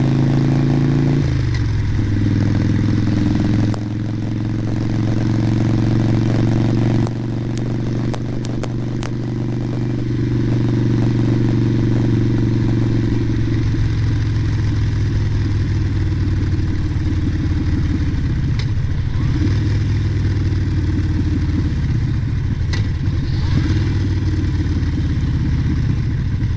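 2011 Harley-Davidson Sportster Nightster's 1200 cc V-twin engine running steadily under way, heard through a helmet microphone with a dead-cat windscreen. The engine note changes about a second in, and the level dips twice, around four and seven seconds in.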